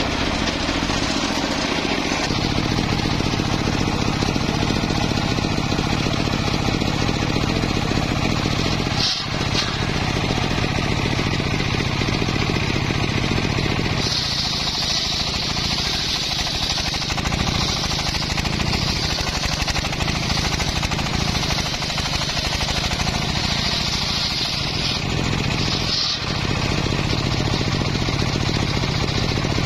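Homemade circular-saw sawmill running steadily, its motor and blade sounding continuously. A brighter, higher-pitched hiss joins about halfway through and stops a few seconds before the end.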